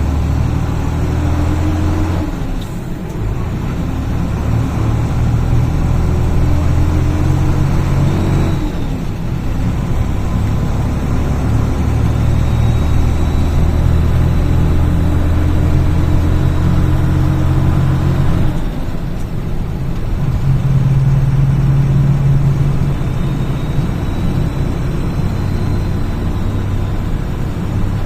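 Mercedes-Benz Eurocar G3 coach's diesel engine running under load. The note drops and settles at a new pitch three times, about 2.5, 9 and 19 seconds in, as it changes gear.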